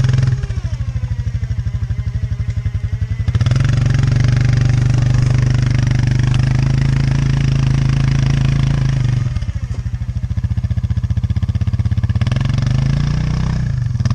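Four-wheeler (ATV) engine pulling to get unstuck from the creek: it runs with a pulsing low idle, is held at higher revs for about six seconds from three seconds in, drops back, then revs up briefly again near the end.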